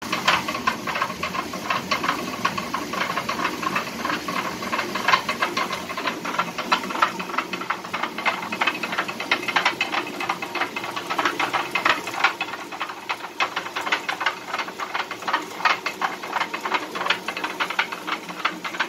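Traditional stone grain mill running: the upper millstone turns under a grain hopper, with a fast, steady rattle of clicks from the wooden feed shoe over a constant hiss.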